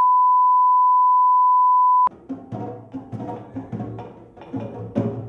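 A steady, pure line-up test tone, the beep that goes with colour bars, cuts off suddenly about two seconds in. Music with drum hits follows.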